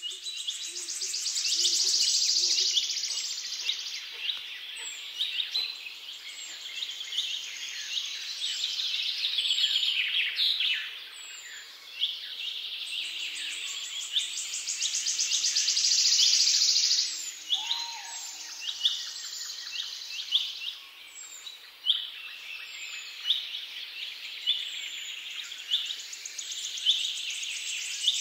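Birds singing: a dense chorus of high chirps and trills that swells and fades, with a short call repeated about once a second in the second half.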